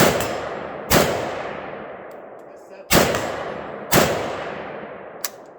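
Four gunshots fired outdoors, in two pairs about a second apart with about two seconds between the pairs, each ringing off in a long echoing decay. A short sharp click follows near the end.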